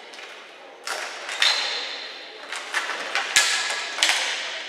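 Ball hockey play: several sharp knocks of sticks and ball striking and hitting the boards, the loudest about two-thirds of the way through, each echoing through the large arena.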